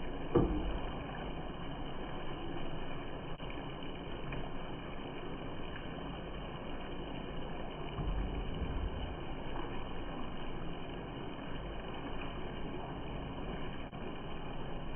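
Wooden spatula stirring and turning chicken pieces as they sauté in a pot, with one sharp knock against the pot about half a second in, over a steady low hiss.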